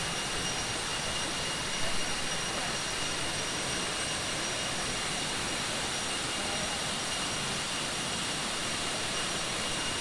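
Steady rushing of a waterfall's falling water, with faint steady high-pitched tones running underneath.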